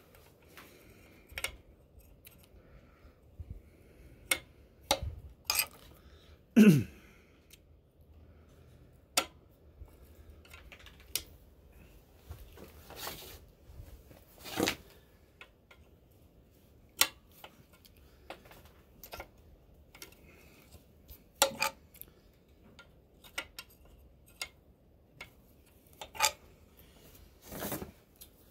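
Intermittent metal clinks and taps of a wrench working a steel oil line fitting on a Ford 8N tractor. About six and a half seconds in comes one short, loud sound sliding down in pitch.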